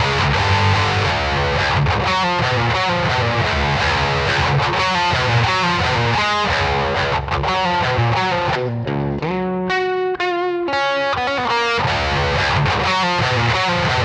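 Electric guitar played through an Occvlt Pedals Wrathprayer distortion pedal, a high-gain metal distortion with an HM-2-style tone stack: fast, heavily distorted picked riffing. About two-thirds of the way through it breaks into a few held, wavering notes, then the busy riffing resumes.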